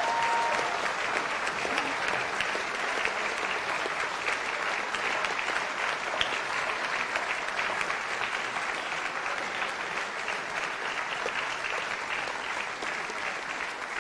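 Audience applauding steadily, the clapping easing off a little toward the end.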